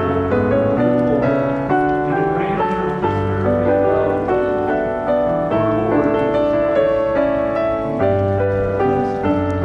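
Background piano music, with notes changing about every half second over a sustained bass line.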